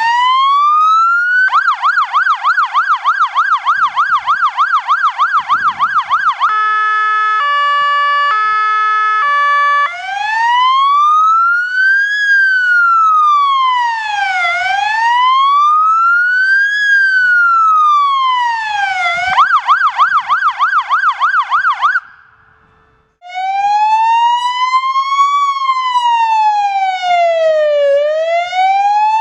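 Fire engine's electronic siren cycling through its tones: a slow rising and falling wail, then a fast yelp, then a stepped pattern of alternating tones, then the wail again and a short yelp. It cuts out for about a second near the three-quarter mark, then a lower, slower wail starts up.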